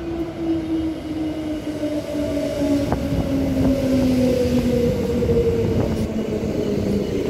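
Four-car Transperth A-series electric multiple unit pulling into the platform, its traction motors whining in tones that fall steadily in pitch as it brakes. Wheel and rail rumble grows louder over the first few seconds.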